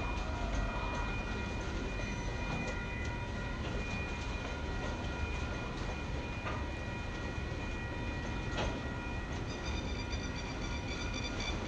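A KiwiRail freight train's container wagons rolling past, a steady low rumble with a faint high steady whine above it. There are two sharp knocks in the middle, and near the end a quick run of high clicks.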